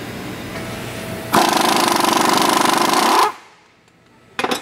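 Air impact wrench hammering for about two seconds as it runs the nut that holds the piston onto the hydraulic cylinder rod, then winding down; a short second burst from the wrench near the end.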